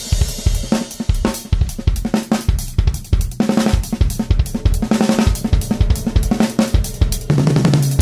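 Opening theme music of a radio show, driven by a busy drum kit (snare, bass drum, hi-hat and cymbals) playing a fast, steady beat. A held low note comes in near the end.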